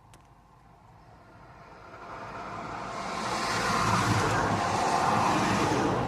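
A road vehicle passing by: its tyre and engine noise swells up over a few seconds, holds loudest for a couple of seconds, then begins to fade near the end.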